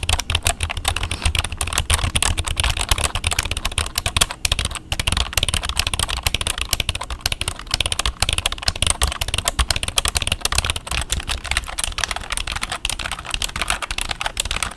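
Fast, continuous typing on a computer keyboard, close to the microphone: a dense run of key clacks with only a couple of brief pauses about four to five seconds in.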